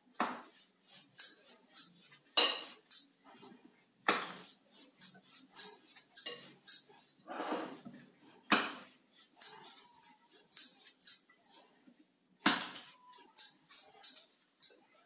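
Rolling pin working a stuffed paratha on a rolling board, with irregular light knocks and clatter and a few louder knocks.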